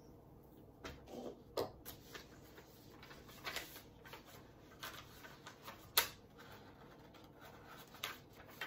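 Sheet of paper being handled and glued, rustling, with scattered light clicks and taps; the sharpest click comes about six seconds in.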